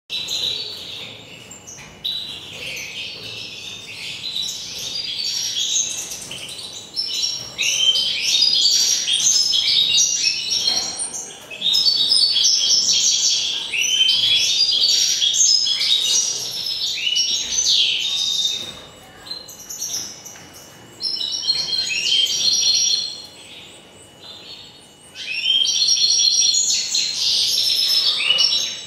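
Nestling finches begging to be fed by a foster European goldfinch: shrill, rapid chirping that comes in loud bursts of a few seconds, with quieter spells between feeds.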